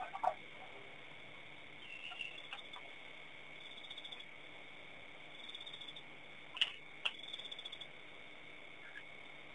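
Evening insect chorus at a waterhole: short, fast chirping trills every second or two over a steady high hum. A few sharp clicks or calls stand out, one at the very start and two about two-thirds in.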